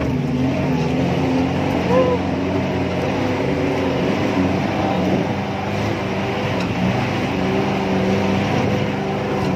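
Offroad jeep engine running steadily while driving slowly along a dirt track, its note holding even with small shifts in pitch.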